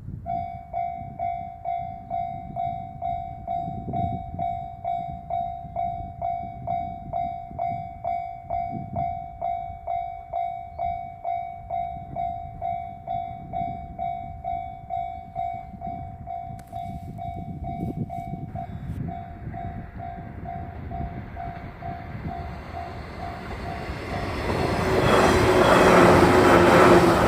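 Japanese railway level crossing alarm ringing its standard electronic bell tone, about two strokes a second, turning fainter about 18 seconds in. Then a train approaches, its rumble rising to its loudest near the end as it passes the crossing.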